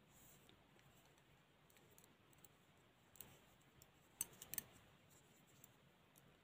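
Near silence with a few faint clicks of double-pointed knitting needles as stitches are worked, one about three seconds in and a quick cluster a second later.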